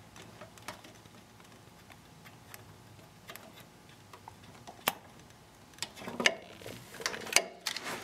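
Light scattered clicks and taps of a hand working a small plunger safety switch loose from its mounting bracket. There is one sharp click about five seconds in and a cluster of rattling clicks near the end as the switch comes free.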